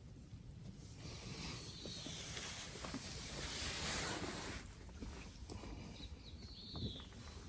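Outdoor ambience: a gust of wind swells for a few seconds and dies away, over a low rumble of wind on the microphone. A bird calls briefly twice, once early and once near the end.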